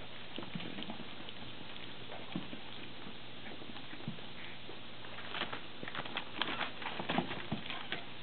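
Standard poodle puppies licking gruel from a metal feeding pan and moving about on newspaper: scattered small clicks, laps and paper rustles, growing busier about two-thirds of the way through.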